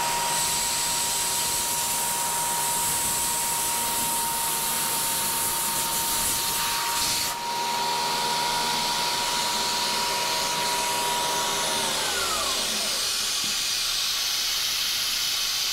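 Compressed air and mist coolant hissing steadily at a CNC Bridgeport mill cutting aluminum, over the spindle's steady whine; just after twelve seconds the spindle whine glides down and fades as the spindle stops. The quarter-inch end mill has loaded up with aluminum from poor chip evacuation.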